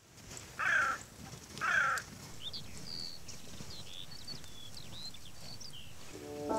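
Two harsh, loud bird calls about a second apart, then a run of short, high chirps from small birds. Music with held notes begins near the end.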